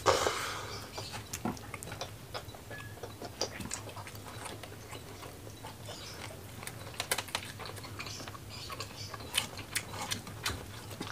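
Close-miked eating by hand: fingers working through rice and pulling apart roasted chicken, with scattered small clicks, smacks and rustles. The loudest moment is a short burst at the very start, and a faint steady low hum lies underneath.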